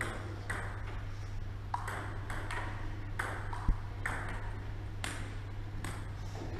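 Table tennis rally: the ball clicking off the table and the rubber paddles, between one and two hits a second, each hit echoing briefly off the bare walls. One louder knock comes about midway, over a steady low hum.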